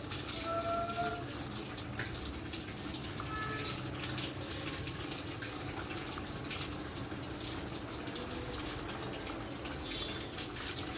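LG direct-drive top-load washing machine filling: water pouring steadily from the inlet into the drum. This is the fill cycle, with water being taken into the tub.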